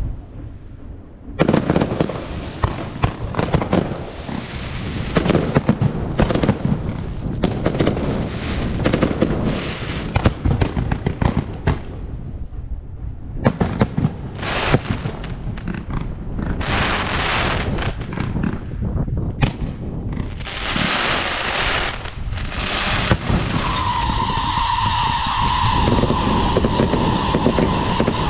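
Fireworks going off in a dense barrage: rapid bangs and crackling bursts, with short lulls. Near the end a steady high tone sounds over the crackle.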